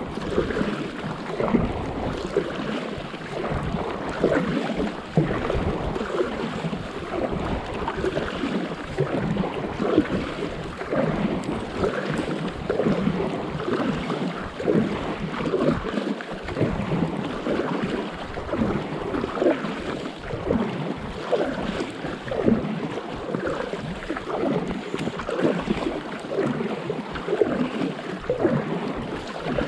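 Water splashing and lapping around a stand-up paddleboard as the paddle dips and pulls through the sea, with wind rumbling on the microphone.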